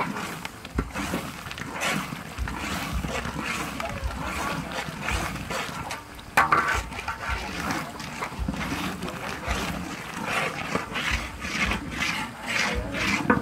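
A metal spatula stirs and scrapes a thick red sauce sizzling in a large wok, in uneven strokes. There is one sharp, louder knock about six and a half seconds in.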